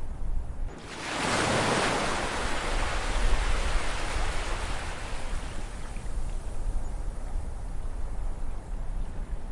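Ocean waves: one wave breaks about a second in and washes out with a long, slowly fading hiss over a low rumble of surf.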